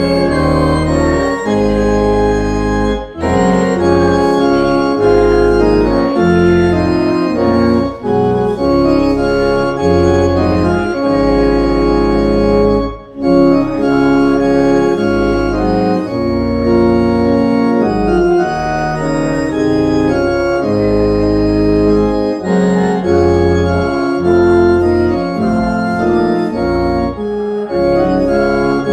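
Church organ playing a hymn in sustained chords over a deep pedal bass, breaking off briefly between phrases a few times.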